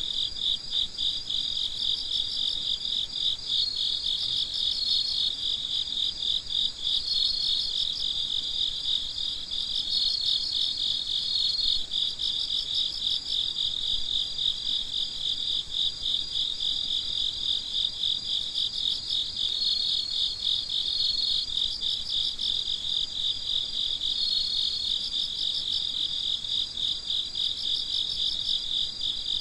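Crickets chirping at night in a dense, continuous chorus of rapid pulsed trills. A second, higher steady trill joins now and then for a second or two at a time.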